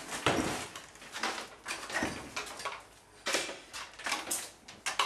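A series of irregular sharp knocks and clatters, about one a second.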